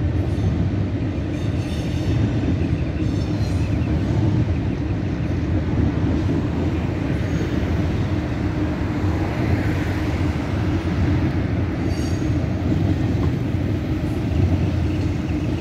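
CSX intermodal freight train's container cars rolling past steadily, the wheels running on the rails.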